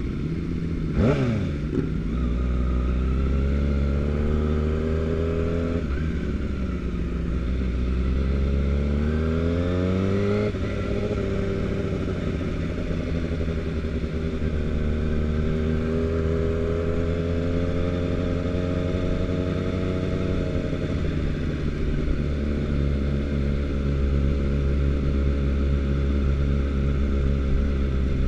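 Sport motorcycle engine heard from the rider's seat at low road speed, its pitch climbing under throttle and dropping back several times, once abruptly about ten seconds in. A brief falling sweep in pitch comes about a second in.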